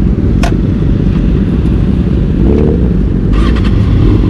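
Kawasaki ZX-6R's inline-four engine running through an Akrapovic exhaust while the bike is ridden: a loud, dense low rumble that holds steady, with a sharp click about half a second in.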